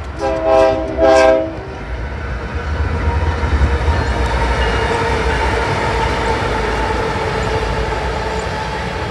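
BNSF diesel locomotive air horn sounding two short blasts, then the lead locomotives pass close by with a steady low engine rumble.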